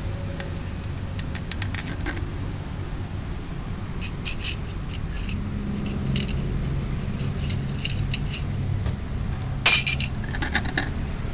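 Small clicks and taps of a clear plastic cover plate and a metal motorcycle cylinder head being handled, with one sharp clack a little before the end, over a steady low rumble.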